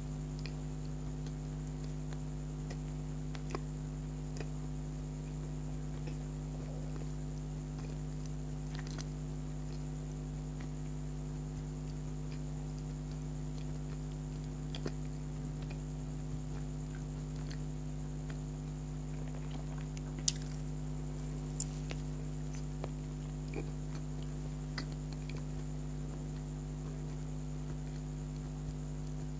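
Steady electrical hum with a few faint, scattered clicks and small mouth sounds from someone eating soft donuts; the sharpest click comes about two-thirds of the way in.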